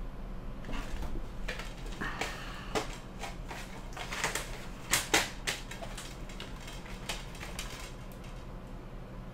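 A fold-out cardboard DVD digipak with plastic disc trays being handled and turned over: a run of clicks, taps and card rustles, the sharpest two about five seconds in.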